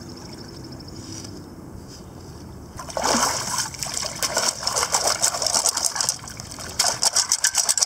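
Water splashing and draining, with sand and gravel rattling, as a sand scoop digs into the shallows for a detected coin and is lifted out. It starts about three seconds in, after a quieter stretch, with a quick run of rattling near the end.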